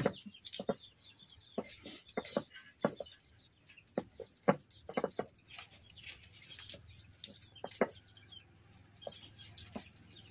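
Irregular knocks and scrapes of a knife working on a wooden chopping block as food is cut by hand. Small birds chirp a few times, most clearly about seven seconds in.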